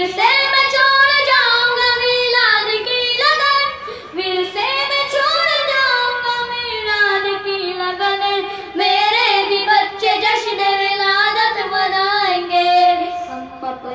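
A boy singing an Urdu naat, a devotional song in praise of the Prophet, in a high child's voice, with long held notes that slide and turn, and brief breaths about four and eight seconds in.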